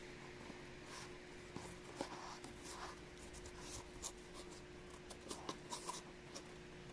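Corrugated cardboard of a handmade mask scraping and crinkling under the fingers as it is handled and bent, in faint scattered scratches and light clicks over a steady low hum.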